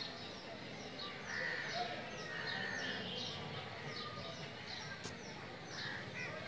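Birds chirping: many short, falling high chirps repeating several times a second, with a few longer notes, over a steady low background noise.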